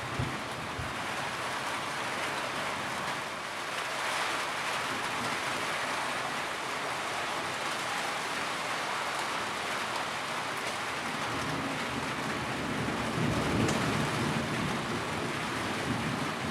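Steady rain, with a low rumble of thunder swelling from about twelve seconds in and fading near the end.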